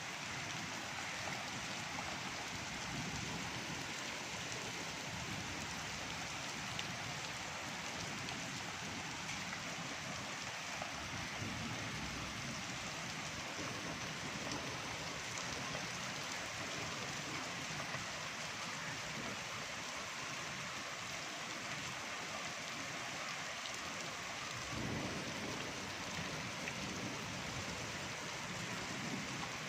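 Steady rain falling and pattering on surfaces, an even hiss that holds at the same level throughout.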